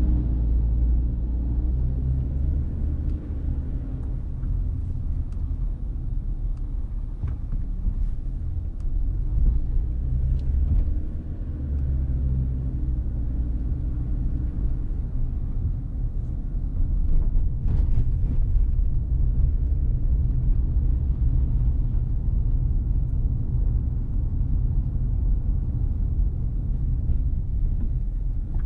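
Low, steady rumble of a car driving slowly, road and engine noise, with a few faint clicks.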